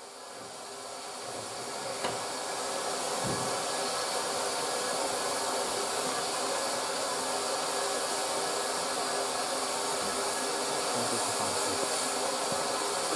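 Steam locomotive venting steam: a steady hiss that fades in over the first couple of seconds and then holds level, with no exhaust beat.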